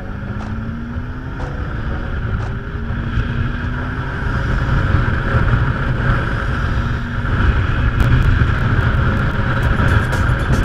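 Motorcycle engine pulling away, its pitch rising over the first few seconds, then a steady ride at speed with engine rumble and wind rushing over the microphone that grows slowly louder.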